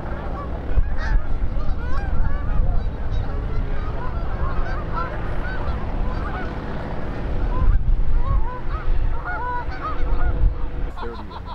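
A flock of birds calling over and over, many short honking calls overlapping, over a steady low rumble.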